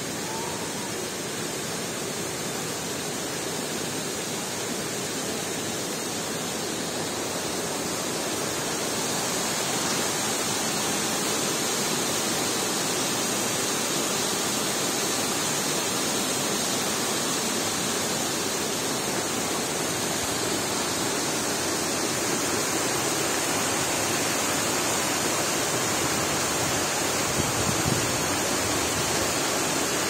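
Steady rush of a waterfall in full flow, water spilling over a mossy rock dome into a river. It grows louder about a third of the way in, and a brief low thump comes near the end.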